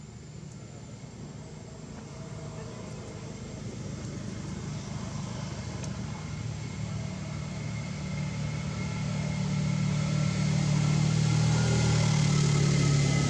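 Motor vehicle engine approaching, a steady low hum with a faint whine that grows louder over about ten seconds and is loudest near the end, as it passes close by.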